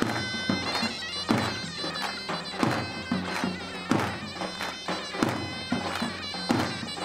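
Turkish davul-and-zurna wedding music: a loud double-reed pipe plays a wavering, ornamented melody while a large davul bass drum is beaten under it.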